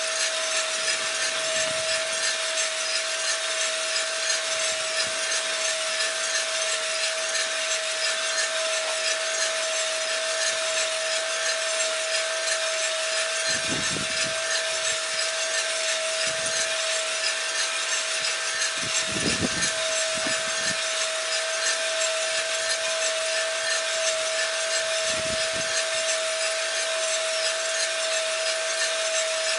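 Cormorant CR600 gas coffee roaster running mid-roast: coffee beans tumbling in the rotating drum give a steady rasping rush, with the roaster's fan and a steady hum underneath. The roast is in the Maillard stage, before first crack.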